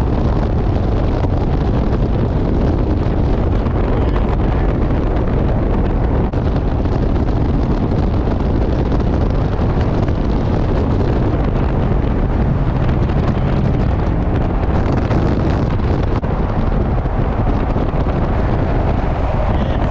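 Wind rushing over the microphone together with road and tyre noise from vehicles at freeway speed, a steady loud rush.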